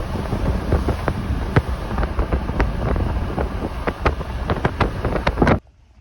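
Wind buffeting the microphone in a heavy low rumble, with irregular sharp knocks and clicks throughout; it cuts off suddenly near the end.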